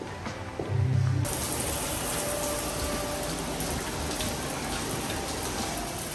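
Water pouring and splashing steadily, a loud even rush that starts suddenly about a second in, after a short tail of background music.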